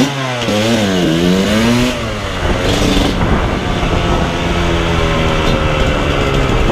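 Dirt bike engine under way, its pitch rising and falling several times in the first two seconds as the throttle is worked, then holding a steadier note.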